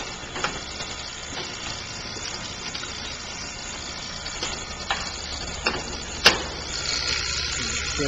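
Refrigeration vacuum pump running steadily with a low drone while a system is evacuated, with scattered clicks from the brass manifold gauge valves and hoses being handled, the sharpest about six seconds in. Near the end a hiss and a steady whine join in.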